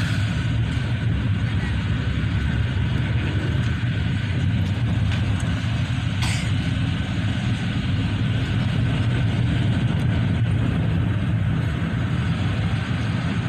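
Steady low rumble of road and engine noise heard inside a moving car's cabin, with a brief tap about six seconds in.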